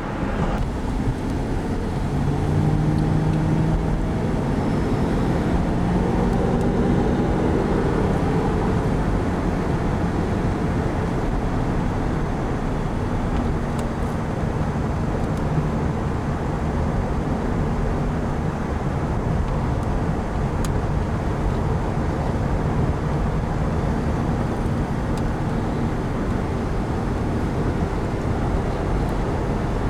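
1993 Chevrolet Caprice station wagon on the move, its V8 running through a freshly repaired exhaust system. The engine pitch climbs over the first several seconds as the car gathers speed, then settles into a steady cruise with road and tyre noise.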